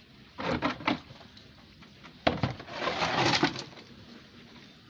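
Female broodstock catfish being weighed, thrashing against its container on the scale: a few quick knocks, then a sudden louder burst of knocking and rustling about two seconds in that lasts about a second and a half.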